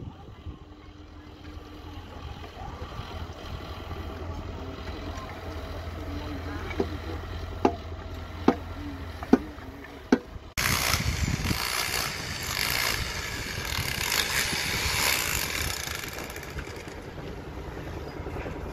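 Electric demolition hammer chiselling a concrete wall: a loud, dense chattering noise that starts abruptly about halfway through. Before it, a low steady hum with four sharp clinks about a second apart.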